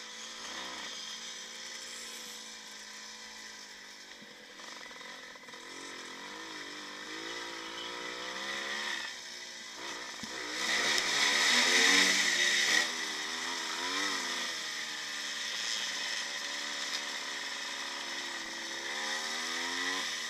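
1955 Maico motorcycle's single-cylinder two-stroke engine running under way, its pitch rising and falling with the throttle. It gets louder for a couple of seconds about halfway through, while the bike passes through a culvert pipe.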